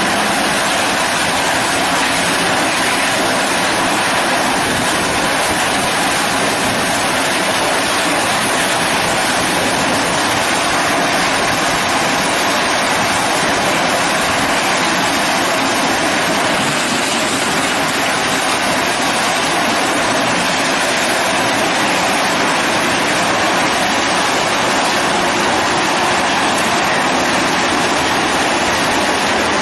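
ZZS SC1680 horizontal hammer mill crushing scrap steel paint buckets, with its feed and discharge conveyors running: a loud, steady, dense mechanical noise.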